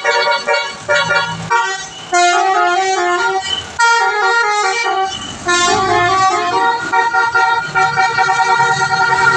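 Twelve-trumpet musical air horn on a medium bus, the Indonesian 'telolet' kind, playing a quick tune of several horn tones at once, stepping up and down in pitch.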